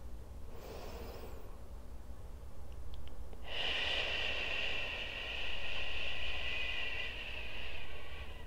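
A woman breathing audibly into a close lapel microphone: a short soft breath about a second in, then one long, slow, hissing breath lasting about five seconds, as a paced meditation breath.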